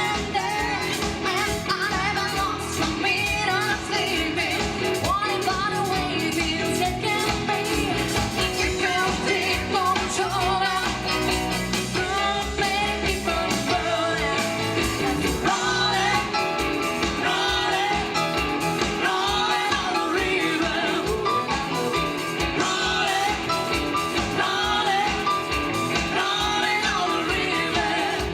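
Live pop-rock band playing a song with drums, bass guitar, keyboards and electric guitar, with women singing the lead.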